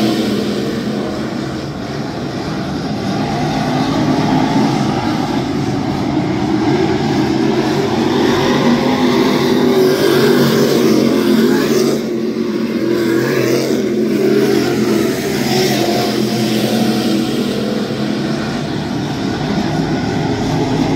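Several dirt late model race cars' V8 engines running at racing speed around a dirt oval, a continuous loud engine drone that swells and eases as the cars come round, with one car passing close by about ten seconds in.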